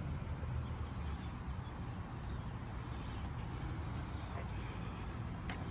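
Steady low outdoor background rumble, with a couple of faint clicks near the end.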